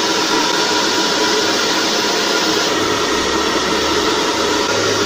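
Handheld hair dryer running steadily, blowing air out through a PVC elbow nozzle that holds a ping-pong ball aloft. Its low hum drops in pitch about three seconds in and rises back near the end.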